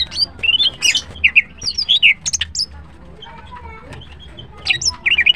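Female greater green leafbird (cucak ijo) singing a fast run of short, sharp chirps and slurred whistled notes, falling silent for about two seconds midway, then starting again near the end.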